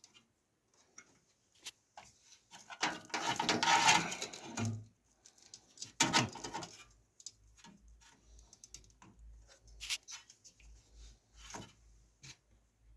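Scattered small clicks and rustling from parts being handled, with a louder stretch of rustling and scraping about three seconds in and another short burst around six seconds in.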